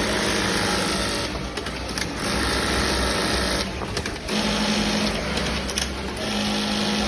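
Industrial sewing machine stitching kitchen towels, running in fast whirring spells that stop briefly twice, about a second in and again near the middle, before starting up again.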